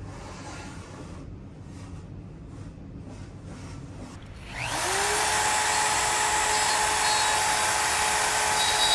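Faint knocks of plastic parts being handled, then an electric wood router is switched on about halfway through. Its whine rises quickly and settles into a steady high-speed run.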